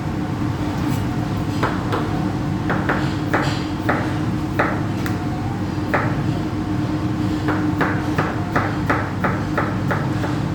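Knife chopping potatoes into fry sticks on a cutting board: separate sharp strokes, scattered at first, then a quicker run of about three a second near the end, over a steady low hum.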